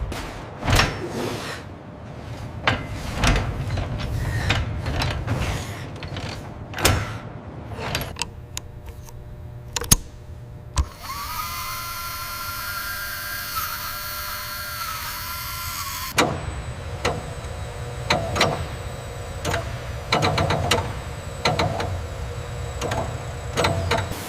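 Assembly tool noise: a string of sharp clicks and knocks, then a power tool running steadily for about five seconds with a hiss and a whine, which cuts off suddenly, followed by more clicks and knocks.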